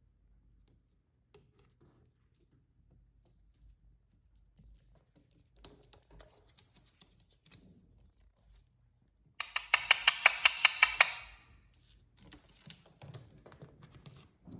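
Indian ringneck parrot giving a harsh, rapid chattering call for about two seconds, a little past the middle. Faint clicking and scratching comes before and after it.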